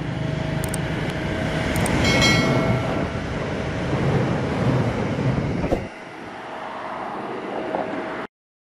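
A train running past with a heavy, steady rumble and rattle, which drops away suddenly about six seconds in as it passes, leaving a quieter hiss. A couple of sharp clicks and a short ringing chime sound about two seconds in.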